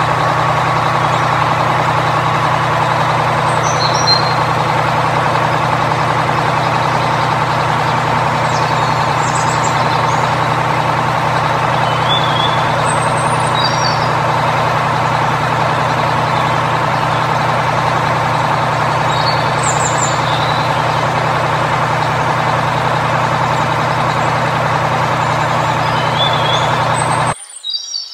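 Heavy truck engine running at a steady, unchanging pitch, with a few short bird chirps over it; the engine sound cuts off abruptly near the end.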